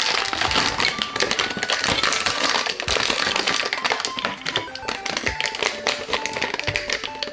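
Clear plastic clamshell packaging crackling and snapping as it is pried open by hand, over chiptune background music with short stepping notes.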